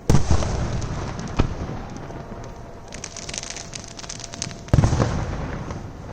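Aerial fireworks shells bursting. A heavy boom comes right at the start and its rumble fades away. A sharper bang follows about a second and a half in, then a run of dense crackling from about three to four and a half seconds, and another heavy boom with a fading rumble near five seconds.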